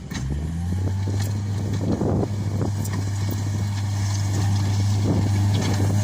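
Case SR130 skid steer loader's engine running, its pitch rising quickly just after the start and then holding steady. Scattered knocks and rattles sound over it.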